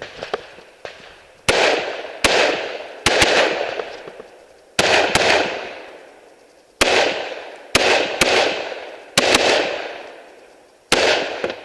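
AR-15 rifle shots: about a dozen sharp reports, fired singly and in quick pairs with pauses of a second or two between, each trailing off in a long echo.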